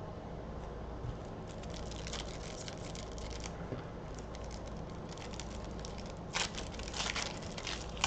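A foil trading-card pack crinkling and tearing as it is opened by hand. There is scattered light crackling, with louder crinkly bursts about six and seven seconds in.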